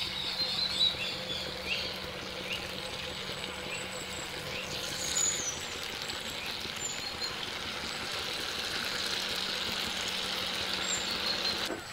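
Batter-coated pieces of boiled colocasia (taro) sizzling as they deep-fry in hot oil in an iron kadai, a steady hiss that fills out as more pieces are dropped in. A few brief bird chirps about five seconds in.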